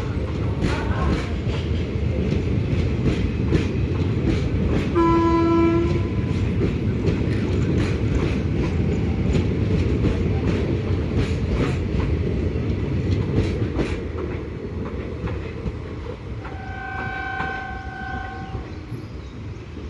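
Passenger train departing, its coaches rolling over rail joints with a steady rumble and quick clicks that fade away after the midpoint. A low train horn blast of about a second comes about five seconds in, and a fainter, higher horn of about two seconds sounds near the end.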